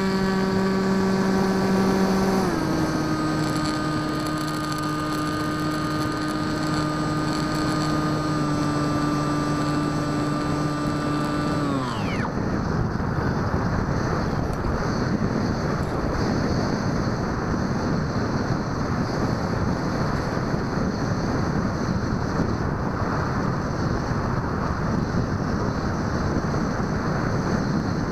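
Bixler 2 model plane's electric pusher motor and propeller humming at a steady pitch, stepping lower twice as the throttle is eased back, then winding down and stopping about twelve seconds in. After that, wind rushes over the onboard microphone as the plane glides with the motor off.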